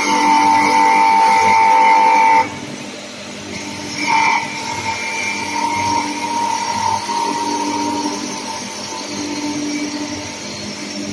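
Small CNC wood lathe running and cutting a wooden spindle: a steady machine whine with several held tones. It drops sharply in level about two and a half seconds in, and there is a brief louder sound about four seconds in.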